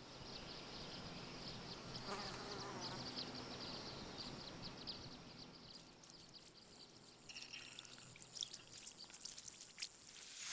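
Faint insect ambience: rapid, dense chirping that thins out after about six seconds, giving way to scattered small clicks and ticks.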